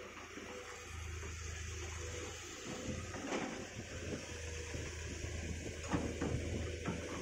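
Hitachi amphibious excavator on a pontoon undercarriage, its diesel engine running with a steady low hum. From a little under three seconds in, irregular clanks and knocks join it as the machine works and moves in the water.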